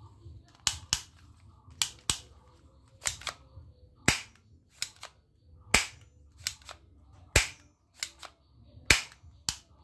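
Red plastic toy pistol being cocked and dry-fired: its slide and trigger give a string of sharp clicks, many in close pairs, about one pair a second.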